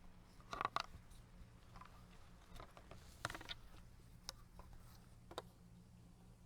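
A few faint clicks and knocks of plastic stacking stakes and composite timbers being handled and fitted together, over a low steady hum.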